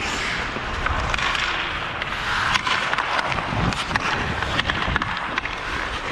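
Ice hockey skate blades carving and scraping on the ice during a rush up the rink, with several sharp clicks of the stick on the puck as it is carried in on the net.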